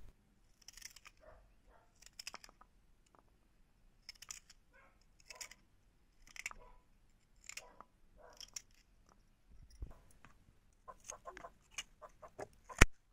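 Kitchen knife slicing through raw lotus root on a cutting board: short, crisp cuts, about one a second, with a sharper knock near the end.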